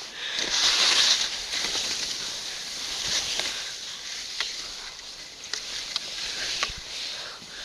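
Skis hissing as they slide through soft snow, loudest about a second in, with a few short sharp clicks.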